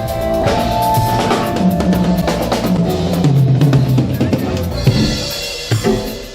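A drum kit played in a sound check: bass drum and snare hits over sustained low ringing tones, thinning out and getting quieter near the end.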